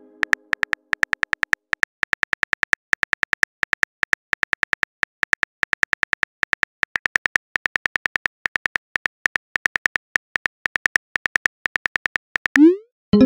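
Phone keyboard typing sound effect: a rapid, steady run of short clicks as a text message is typed out, then near the end a short rising swoosh as the message is sent.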